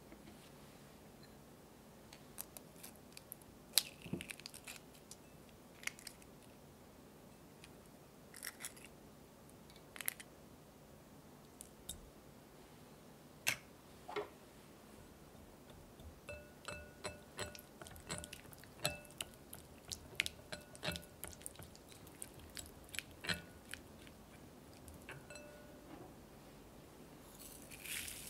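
Scattered small clicks and taps as eggs are handled and cracked. Then a run of light clinks of a wire whisk against a glass mixing bowl as egg yolks are beaten, some clinks ringing briefly. Near the end, cane sugar pours in with a short, soft hiss.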